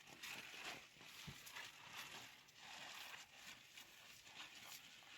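Faint rain, a soft even hiss with light irregular taps of drops.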